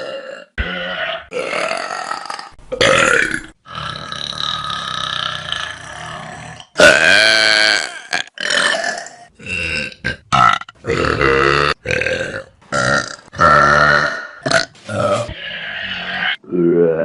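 A string of loud human burps, one after another. A few early ones are long and drawn out, then many short ones follow, each about a second, with brief gaps between.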